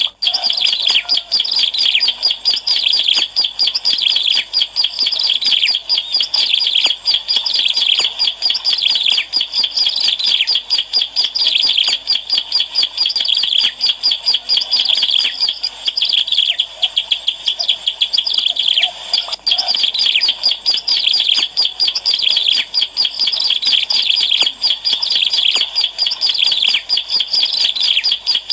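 Ciblek alang-alang, a prinia, singing a rapid, unbroken stream of high, sharp chirps, with a brief thinner stretch a little past halfway. It is a 'gacor' lure song, meant to draw other birds of its kind.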